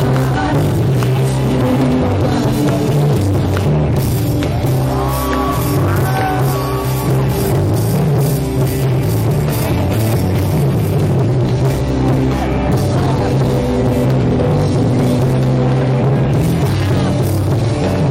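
Live rock band playing loud, with heavy bass and drums, recorded from inside the crowd.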